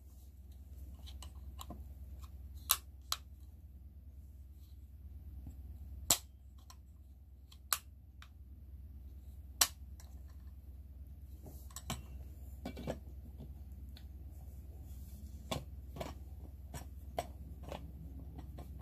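Sharp plastic clicks from the two-way stopper cap of a stainless-steel insulated bottle being worked by hand, coming irregularly: a few loud single snaps in the first ten seconds, then a quicker run of lighter clicks, over a steady low hum.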